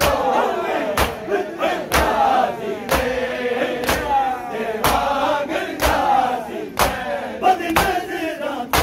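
Matam: a large crowd of men striking their bare chests with open hands in unison, one loud slap about every second. Between the slaps, men's voices chant a noha (lament).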